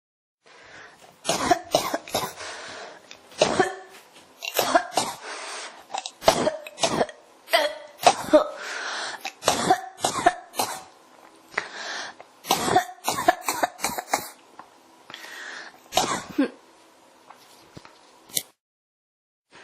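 A person coughing over and over in an unstoppable fit: sharp coughs in clusters of one to three, with noisy breaths drawn in between them. The coughing breaks off about a second before the end.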